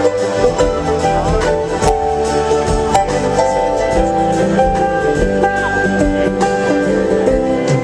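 Live acoustic band playing an instrumental passage, with a banjo and other plucked strings picking quick notes over sustained chords.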